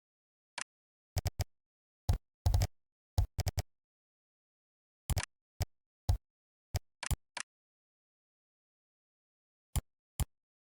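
Computer keyboard typing: irregular keystroke clicks, some in quick runs of two to four, with a pause of about two seconds before a last couple of keystrokes near the end.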